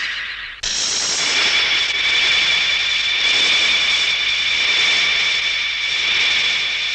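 Anime transformation sound effect for Ultraman Joneus changing with the Beam Flasher. A loud hissing rush fades back, then cuts to a new sustained rushing hiss about half a second in, with several steady high ringing tones held over it.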